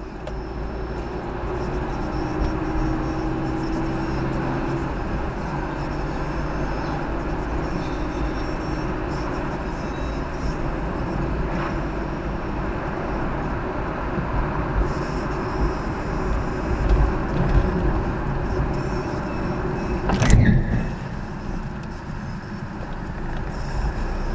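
Car driving on a city street, heard from inside the cabin: steady engine and tyre rumble. A sharp knock with a brief falling whistle stands out a few seconds before the end.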